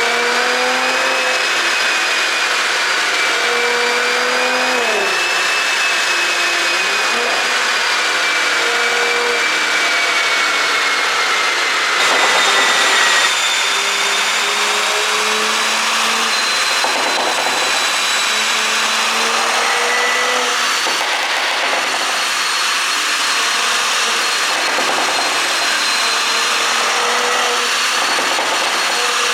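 Porsche Cayenne Coupe engine with an ECU tune, revved and held at several steady speeds, its pitch stepping up and down, over a steady high whine. No distinct pops or crackles stand out.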